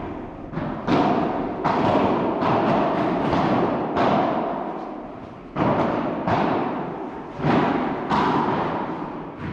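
Padel ball being struck back and forth by rackets in a rally, a quick, irregular series of sharp hits, each ringing on in the echo of a large indoor hall.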